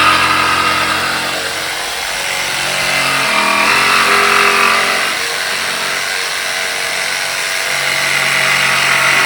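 A power tool running steadily under load, its pitch shifting a few times.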